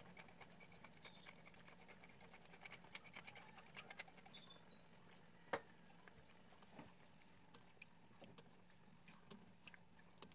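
Chicken afritada simmering in a pan: faint, irregular small pops and crackles of bubbling sauce over a low steady hum, with one sharper click about five and a half seconds in.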